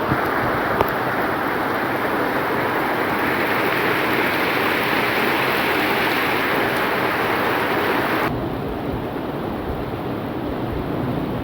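Heavy rain falling in a steady, dense hiss. About eight seconds in it changes abruptly to a duller, slightly quieter rain.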